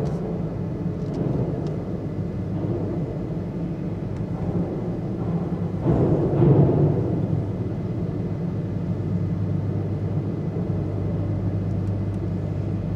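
Low, steady rumble of a car driving slowly across a ferry's enclosed vehicle deck, with a constant hum beneath it. The rumble swells louder for about a second, around six seconds in.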